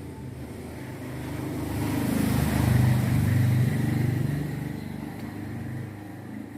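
A motor vehicle's engine passing by, its hum swelling to a peak in the middle and fading away again.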